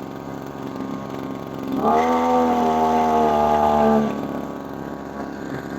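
Small two-stroke engine of a TU26 water pump idling, revved up for about two seconds near the middle, then dropping back to idle. The pump has been losing power and stalling at higher throttle, a fault to be cured by setting the carburettor air screw.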